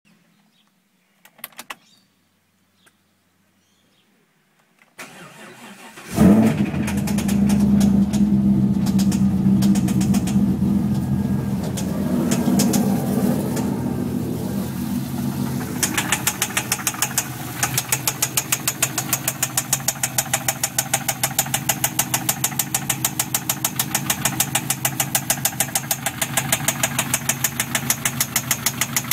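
Holden Thunder Ute's 6.0-litre L76 V8 is cranked and starts about six seconds in, then runs at a steady idle. About sixteen seconds in, a rapid, even knocking comes through over the idle: a knock whose cause is unknown.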